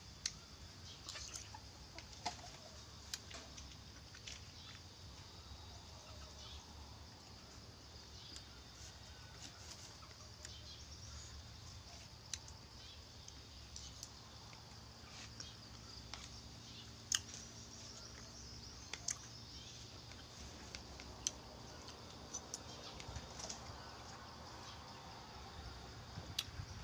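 Eating sounds: a metal spoon clicking against a ceramic bowl and chewing, heard as scattered sharp clicks, the loudest about two-thirds of the way through. A chicken clucks faintly in the background.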